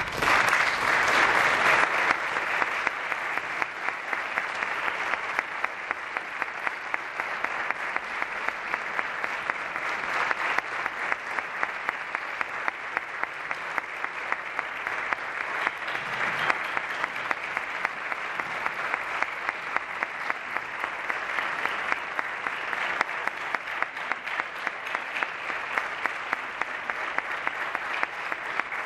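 Theatre audience applauding. The applause breaks out as the orchestra's last chord ends, is loudest in the first two seconds, then carries on steadily.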